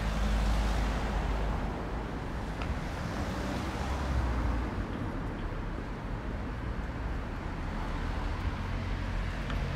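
City street ambience: a steady low rumble of car traffic.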